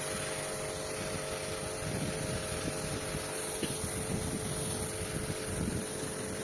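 Motor-driven pump running steadily, a constant hum with a few fixed tones over a hiss of rushing noise.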